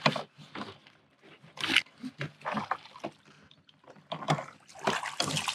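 Short scattered clicks and knocks, then a small summer flounder (fluke) splashing at the water's surface beside a kayak as it is reeled in, about four seconds in.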